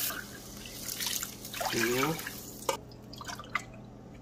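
Water being poured between a glass and a stainless saucepan, splashing and dripping, with a couple of light clicks of glass against metal in the second half.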